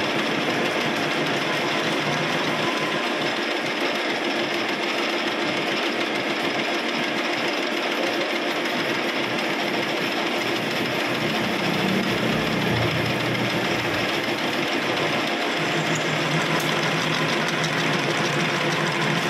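Metal lathe running, its chuck spinning a small steel workpiece against the cutting tool, a steady dense mechanical clatter and hum. A lower rumble swells for a few seconds past the middle.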